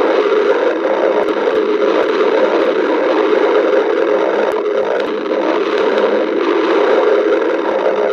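Stomach growling heard up close: a continuous, unbroken run of gurgling with no pauses.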